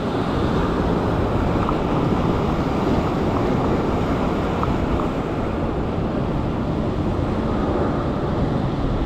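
Sea waves breaking and washing over a rock ledge, a steady rushing noise, with wind buffeting the microphone.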